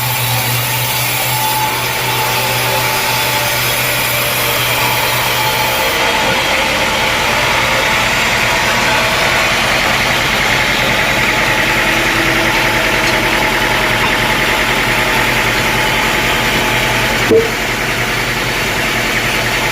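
Sawmill engine running steadily, with the saw apparently not cutting. A low hum drops out about six seconds in, and a brief sharp sound comes near the end.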